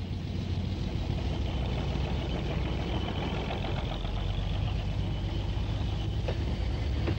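Narrow-gauge diesel railcar running, heard from its front end: a steady engine drone mixed with wheel and track rumble. Two short sharp clicks come near the end.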